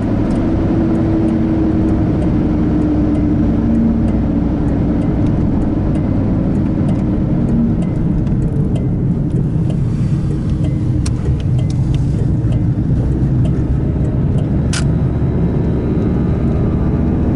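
Car driving along a road, heard from inside the cabin: steady engine and tyre noise, with a single sharp click about fifteen seconds in.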